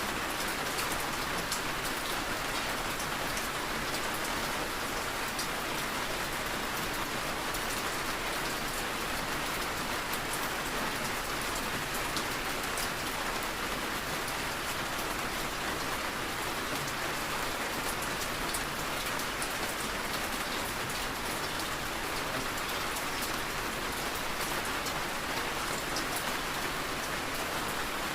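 Steady rain falling: an even hiss with many small drop ticks scattered through it, unchanging in level.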